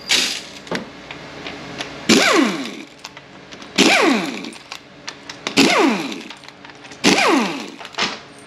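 A handheld power tool with a socket running out the 8 mm valve body bolts on a Ford 4F50N automatic transmission. It gives five short loud runs about every second and a half to two seconds, each a whine that falls in pitch as the tool winds down.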